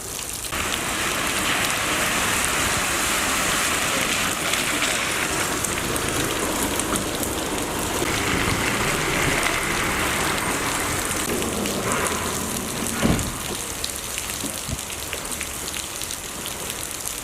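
Heavy rain falling and pattering on surfaces, steady throughout, with one brief thump about 13 seconds in.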